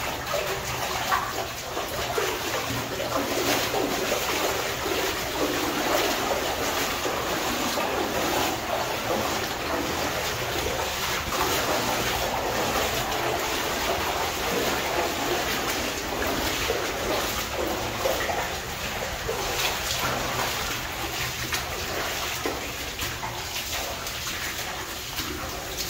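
Wellington boots splashing through shallow water on the floor of a narrow rock-walled mine tunnel, step after step.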